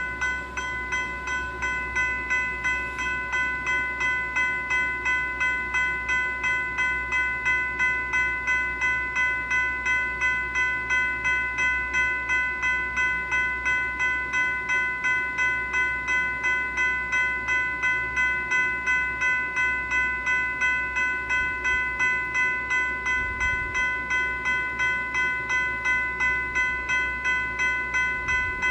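General Signals Type 3 electronic bell (E-Bell) ringing continuously. It gives an even, repeating strike of about two to three rings a second, and each ring is a bright metallic chime that fades quickly before the next.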